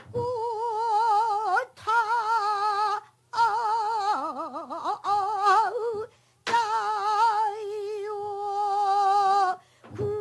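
Female pansori singer holding long, drawn-out vowel notes with a wide, slow vibrato, stopping briefly for breath every one to three seconds.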